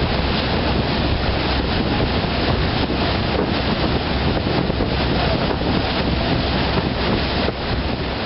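Water rushing and spraying along the hull of a fishing party boat under way, with a steady low drone underneath and wind buffeting the microphone.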